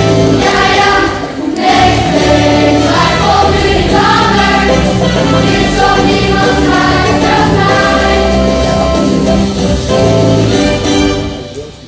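A large group of schoolchildren singing a song together as a choir, with instrumental accompaniment. The song ends and the music fades out about a second before the end.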